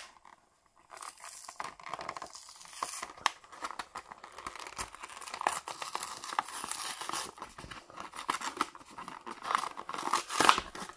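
Clear plastic blister pack being torn and pulled free from its cardboard backing card, with continuous crinkling and crackling and small plastic snaps, louder near the end.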